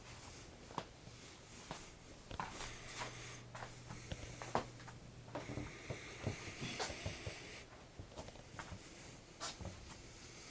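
Faint, scattered taps, scratches and rustles of a cat playing, with a stretch of steady rustling a little past the middle.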